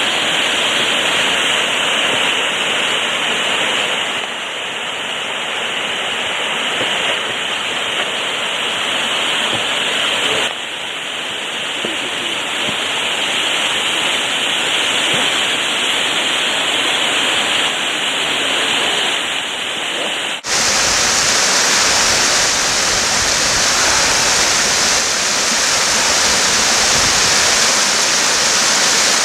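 Crabtree Falls' cascades rushing, a steady loud noise of falling water that changes abruptly in level and tone about 4, 10 and 20 seconds in.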